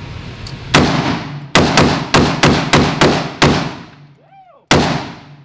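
AR pistol fired semi-automatically indoors, each shot echoing off the range walls. One shot is followed by a rapid string of about seven, then a last shot about a second later.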